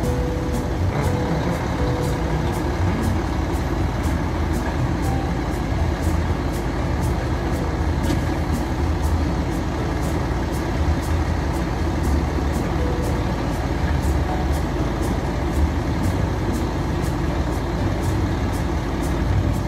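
Side-loading garbage truck's diesel engine running with a steady low rumble while its hydraulic side arm lifts a wheeled cart, tips it into the hopper and lowers it again.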